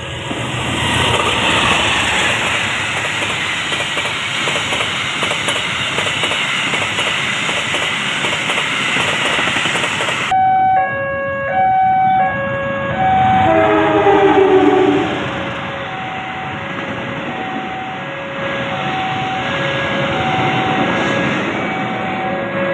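Sancaka passenger train rushing past at speed: a loud, dense whoosh of the passing train. About ten seconds in, a warning alarm alternating two tones, typical of a level crossing, starts beeping steadily while the carriages keep rushing by. A horn sounds briefly a few seconds after the alarm starts.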